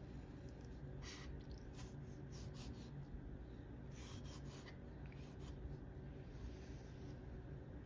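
Kitchen knife slicing the skin off an aloe vera leaf on a wooden cutting board: several short, faint scraping strokes of the blade through the leaf.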